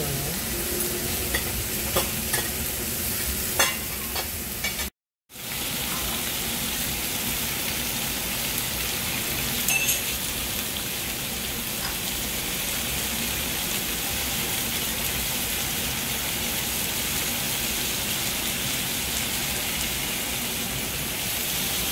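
Intestines and beef sizzling steadily on a hot tabletop grill pan, with a few sharp clicks of chopsticks and metal tongs against the pan and meat, mostly in the first few seconds and again near the middle.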